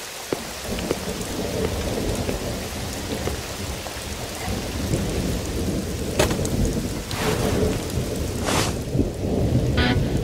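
Heavy rain with a continuous low rumble of thunder. A few short, sharp sounds break in over the last few seconds.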